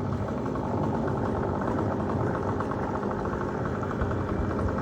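A large engine running steadily at idle, from the tree crew's equipment.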